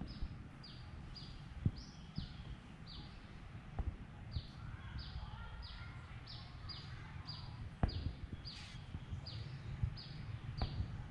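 A bird repeats a short, high, falling note about twice a second. Underneath is low rumbling and a few sharp knocks from an animal's face and fur brushing and bumping against the microphone.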